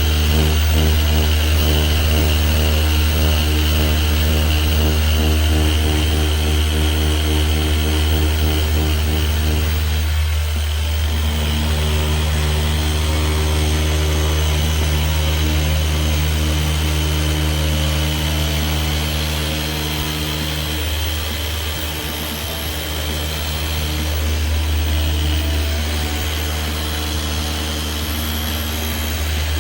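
Dual action polisher running steadily, working a polishing pad over a headlight lens. The hum shifts in pitch around the middle and dips slightly in loudness about two-thirds through.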